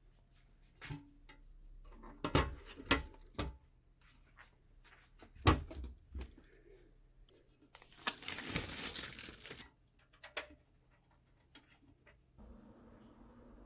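Hands handling parts: a series of light clicks and knocks, one sharper knock midway, then about a second and a half of plastic crinkling or tearing. A faint steady hum starts near the end.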